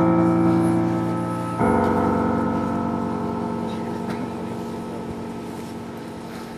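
Amplified electronic music: a deep bell-like chord rings on, a second chord is struck about a second and a half in, and both slowly die away.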